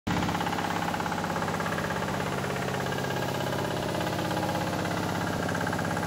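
Engine of a two-wheel walk-behind hand tractor running steadily while tilling a rice paddy, with an even, rapid chugging pulse.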